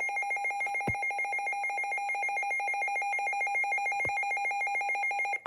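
Weather alert radio's built-in alarm going off for a severe thunderstorm warning: a continuous electronic trill, about a dozen pulses a second, stepping between two high pitches.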